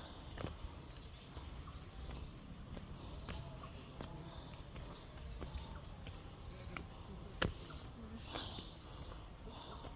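Tropical forest ambience: a steady high insect drone with birds calling, scattered small clicks and knocks, and one sharp knock about seven and a half seconds in.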